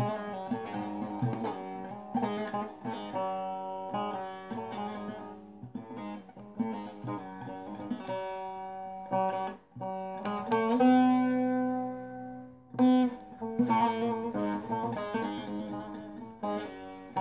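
Bağlama (long-necked Turkish saz) played solo: a quick picked melody over a steady drone string. About two-thirds of the way through, one note is left ringing for about two seconds before the fast picking resumes.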